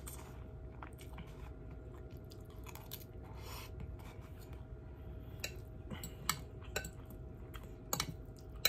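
Quiet chewing of a mouthful of pancit noodles, over a faint steady hum. From about five seconds in come several short light clinks of a metal spoon and fork against a glass food container.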